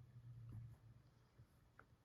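Near silence: a faint low hum that stops under a second in, with a couple of faint clicks.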